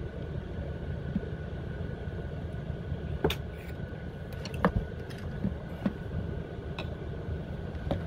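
A few light clicks and knocks from objects being handled, over a steady low hum.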